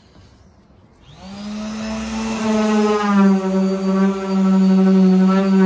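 Ozito random orbital sander switched on about a second in. Its motor winds up and then runs at a steady high hum while sanding the plywood speaker cabinet.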